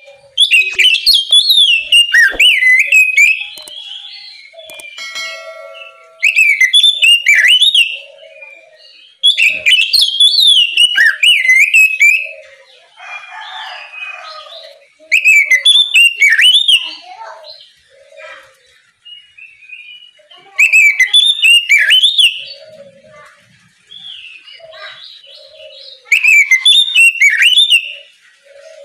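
Oriental magpie-robin (kacer) singing loud phrases of fast, varied whistles in six bursts of two to three seconds each, with softer calls in the gaps between them.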